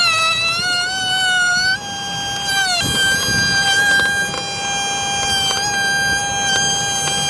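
Cordless power tool motor running with a high, steady whine, its pitch sagging briefly as it takes load. A few light knocks are heard.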